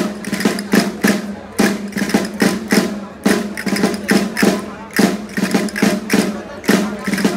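Valencian folk dance music with sharp clicking, typical of castanets played by the dancers, on a steady beat with a strong accent about every second and a half.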